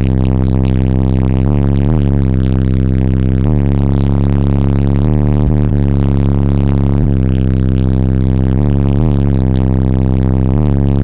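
Car-audio subwoofers playing a bass-heavy track at high volume: a loud, continuous low bass note with strong overtones that steps to a new pitch every second or two.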